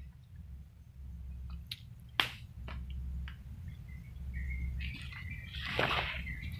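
Footsteps and rustling through forest undergrowth, with a sharp crack about two seconds in and a few lighter clicks. Near the end a louder brush of leaves comes over a thin, steady high call.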